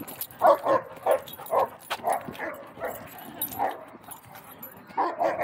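Dogs barking in short single barks, several of them scattered over a few seconds.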